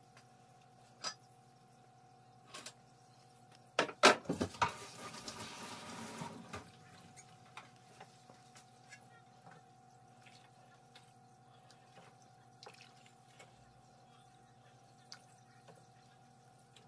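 A few knocks about four seconds in, then water running briefly for about two seconds, over a steady faint hum; otherwise quiet with scattered small ticks.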